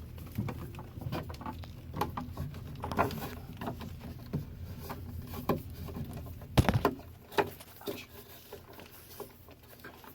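Sheathed electrical cable being pulled through the hole into an outlet box: rustling and scraping with irregular small knocks and clicks, the loudest knocks about two thirds of the way in.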